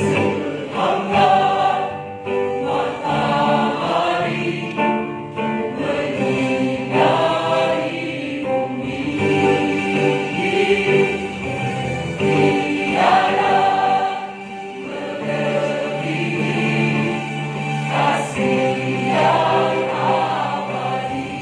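Mixed church choir of men's and women's voices singing a Christian praise song together.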